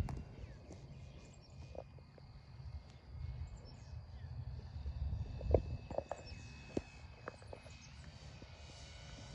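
Faint, steady drone of a large RC model airplane's engine in flight at a distance, its pitch shifting slightly near the end, under low wind rumble on the microphone. A few short knocks and clicks come in the middle, the loudest about five and a half seconds in.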